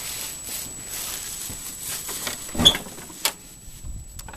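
A house door being opened: rustling movement, then a loud clack with a brief squeak from the latch and hinge a little past halfway, and a second sharp click soon after.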